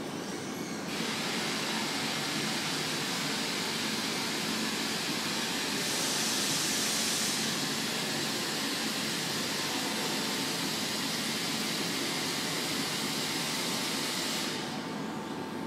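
Renfe Civia electric commuter train standing at the platform, with a steady hiss of air over its low hum. The hiss starts suddenly about a second in, swells for a moment midway and cuts off near the end.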